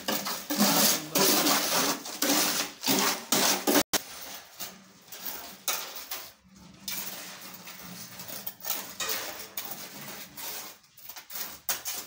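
Wet concrete scraped and tipped out of a metal wheelbarrow into a post hole: gritty scraping with metallic clatter. About four seconds in it cuts off abruptly, leaving quieter background with a few light knocks.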